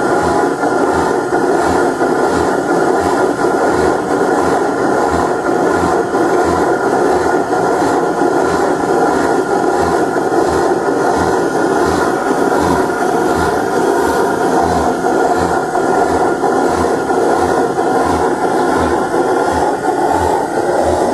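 Large, slow-running stationary engine, with a deep, even thud about one and a half times a second over a steady mechanical clatter.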